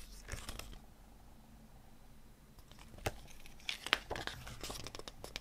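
Pages of a glossy paper CD booklet being handled and flipped: a brief rustle at the start, then a longer stretch of paper rustling and crinkling from about halfway, with a few sharp taps.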